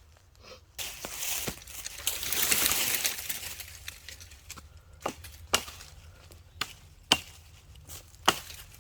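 An axe or hatchet chopping wood: a couple of seconds of rustling, then single sharp strikes about once a second through the second half.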